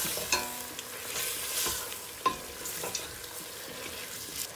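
Mutton pieces sizzling in oil and masala in a stainless steel pot while a spatula stirs them, with scrapes and knocks of the spatula against the pot, the sharpest about halfway through. The masala is being fried (bhuna) until it releases its oil.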